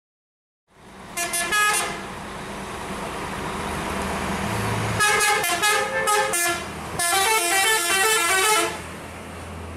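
An intercity bus's multi-tone musical air horn, the Indonesian 'telolet' kind, plays quick stepping note patterns in three bursts: a short one about a second in, then two longer ones about halfway through and just after. The bus's diesel engine runs underneath.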